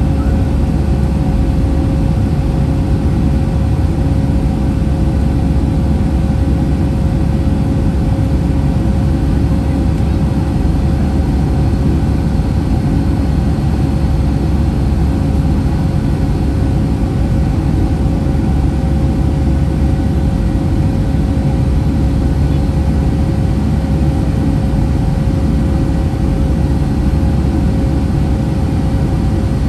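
Steady cabin noise inside a Boeing 757-200 airliner climbing after takeoff: a loud, even drone of engines and rushing air with a constant mid-pitched hum running through it.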